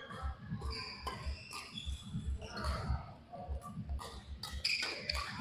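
Badminton doubles rally: sharp racket strikes on the shuttlecock, short shoe squeaks on the court floor, and repeated thudding footsteps.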